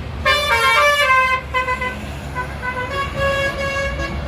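Bus telolet horn of the Basuri type playing a fast melody of stepped notes, loudest in a burst of about a second near the start and softer after, over the low rumble of the passing bus.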